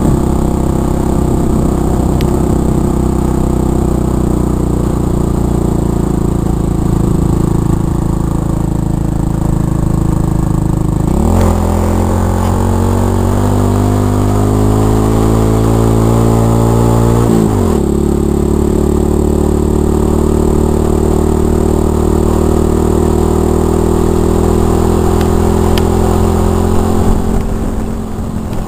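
Motorbike engine running steadily while riding along a road. About eleven seconds in, the engine note jumps up and climbs for several seconds as the bike accelerates, then drops back down at about seventeen and a half seconds.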